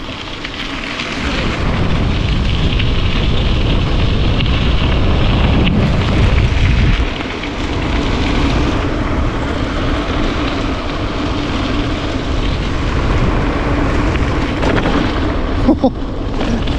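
Wind buffeting the microphone and gravel bike tyres rolling over a bumpy dirt road while riding at speed: a loud, steady rush with a heavy low rumble. A faint steady hum runs through the second half.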